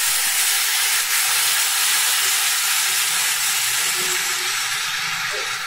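Water poured into a hot karai of cauliflower and potatoes fried in spice paste, hissing and sizzling steadily as it hits the hot oil and masala.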